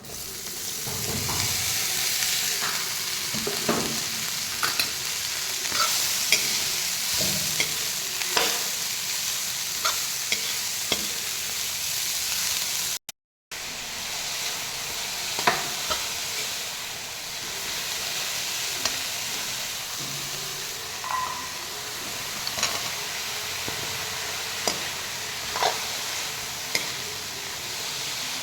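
Green onion sabzi sizzling as it fries in a pan and is stirred, with a steady hiss and scattered clicks and scrapes of a spatula against the pan. The sound briefly cuts out about halfway.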